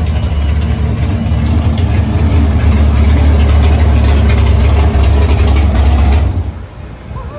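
Third-generation Chevrolet Camaro drag car's engine idling with a loud, steady low rumble as the car rolls into its pit spot, then shut off about six seconds in.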